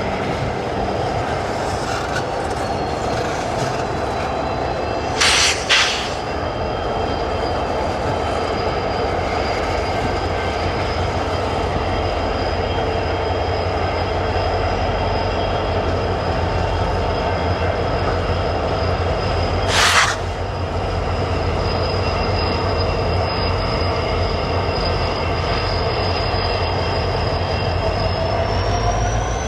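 Freight train rolling past on the rails with steady high wheel squeal and a constant low rumble. Two sharp knocks come about five seconds in and another at about twenty seconds. The squeal rises in pitch near the end.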